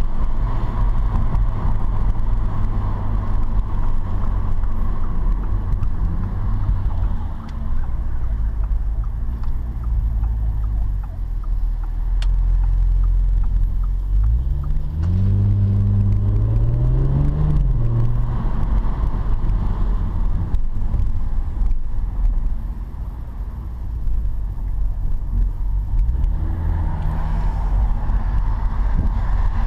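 Audi S4 B9 Avant's engine and tyre noise heard from inside the cabin while driving: a steady low drone over road noise. About halfway through, the engine note climbs under acceleration, drops back at a gear change and climbs again, with a shorter rise near the end.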